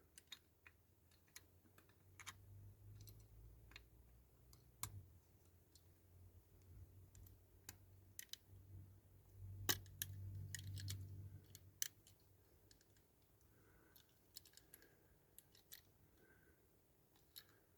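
Near silence broken by sparse faint clicks and taps of small diecast toy parts being handled and pressed into place. The louder clicks come about five, ten and twelve seconds in, with a brief rustle of handling around ten seconds.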